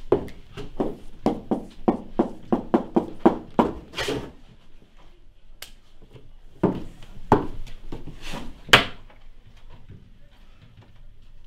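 A quick run of knocks, about four a second for some four seconds, then a few single knocks a couple of seconds later.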